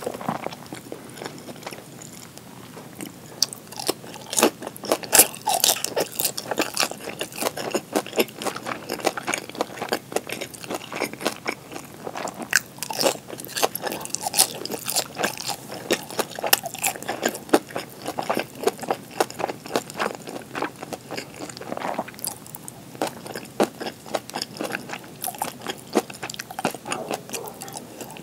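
Close-miked biting and chewing of pan-fried gyoza: an irregular run of sharp crackles and moist clicks from the mouth, busier in some stretches than others.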